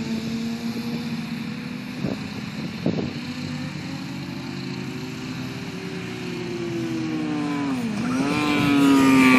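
Racing motorcycle engine running at speed, its pitch rising and falling. About eight seconds in the pitch drops sharply and then climbs steeply, and the engine grows louder toward the end as the bike approaches.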